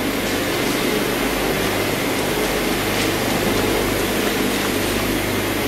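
Gas-heated rotary peanut roasting machine running: a steady low hum under an even rushing noise.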